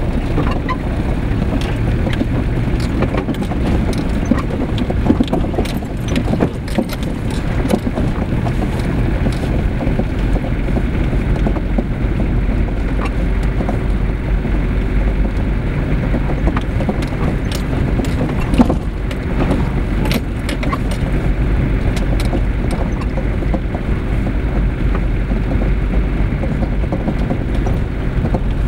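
Car cabin noise while driving slowly over a rough, unpaved dirt road: a steady low rumble from the engine and tyres, with frequent small knocks and rattles from the bumps, one sharper knock about two-thirds of the way through.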